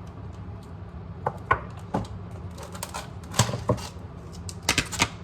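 A run of irregular light clicks and knocks from small kitchen items being handled and set down, over a steady low hum.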